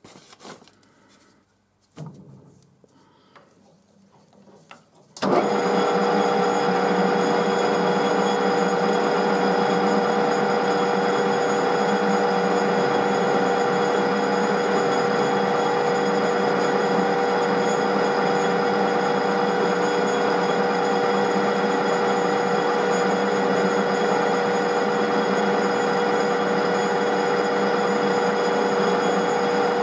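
A few faint knocks, then about five seconds in a metal lathe is switched on and runs steadily with a constant whine from its motor and gearing, turning the chuck while a drill bores out the broken stud in the thread chaser.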